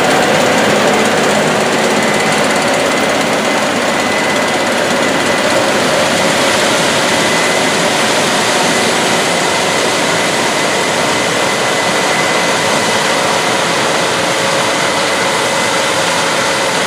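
Case IH combine harvester running under load as it harvests corn, a dense steady mechanical noise of engine and threshing machinery with a steady high-pitched whine over it.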